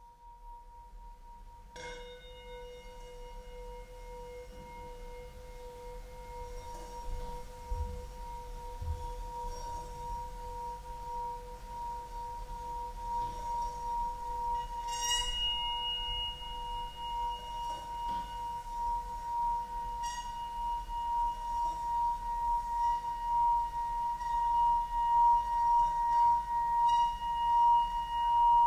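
Sustained metallic ringing: two steady tones, one an octave above the other, renewed by a fresh strike about two seconds in and a few more strikes later that each add higher ringing tones. The ringing swells gradually and takes on a wavering pulse near the end.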